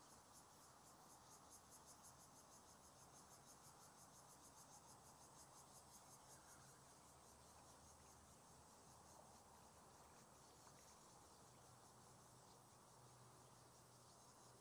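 Faint insect chirping in fast, even pulses, several a second, clearest in the first half and weaker later, over a faint low hum.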